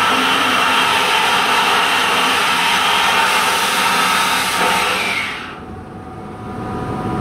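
Cabinet sandblaster's blast gun hissing steadily as abrasive strips layers of old paint off a cast-iron column radiator. The blast cuts off sharply about five seconds in, leaving a quieter, lower machine hum.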